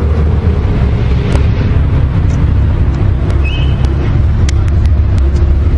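A car engine idling steadily, a low rumble, with a few light clicks and taps over it in the second half.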